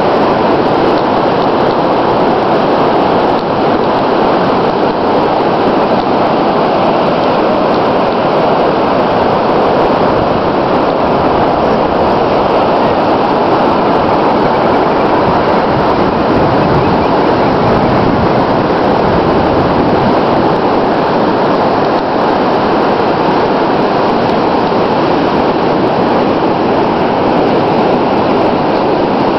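Steady loud rush of wind and surf on an open beach, an even noise that does not let up.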